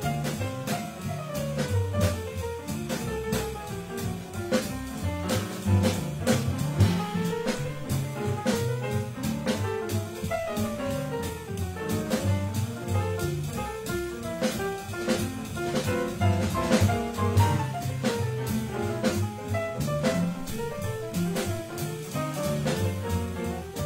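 Jazz piano trio playing: grand piano running lines up and down over plucked upright double bass and a drum kit keeping time on cymbals and drums.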